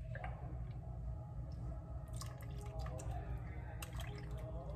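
Half-and-half poured from a carton into a plastic measuring cup and from the cup into soup in a slow cooker, with liquid dripping and splashing and a few light clicks. A steady low hum runs underneath.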